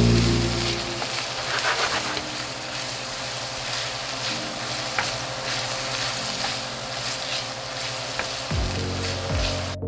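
Ground beef and chopped onion sizzling steadily in a frying pan as they are stirred with a wooden spoon, with a few light taps and scrapes of the spoon on the pan.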